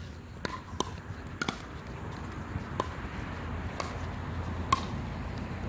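Sharp pocks of a plastic pickleball being struck, about six at uneven spacing, the loudest near the end. Under them a low rumble of passing road traffic builds from about two seconds in.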